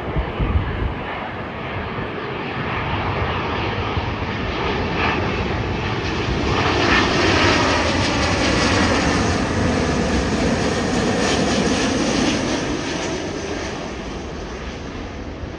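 Boeing 777 twin-engine jet airliner on final approach with gear down, passing low overhead. The jet engine noise builds to its loudest in the middle and then fades, and the engine whine falls in pitch as it passes.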